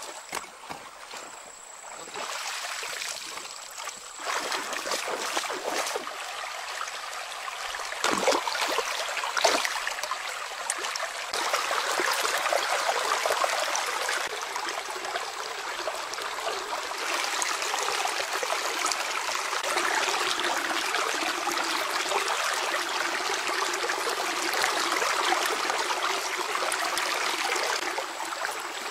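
Shallow stream water running over stones, with a few splashes in the first ten seconds or so.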